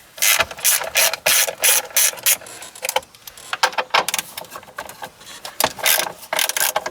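Hand ratchet clicking in quick runs of strokes as the 12 mm bolts holding the shifter assembly are broken loose and backed out.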